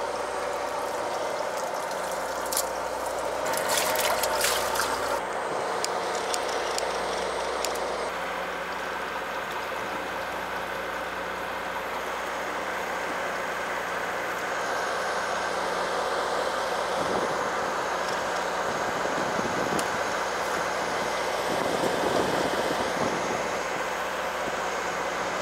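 Fishing boat's engine running steadily, with water washing against the hull. A few clattering knocks about three to five seconds in.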